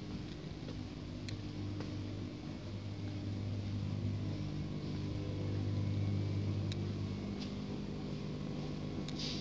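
Steady low mechanical hum of several held tones that grows louder toward the middle and eases off later, with a few faint sharp clicks.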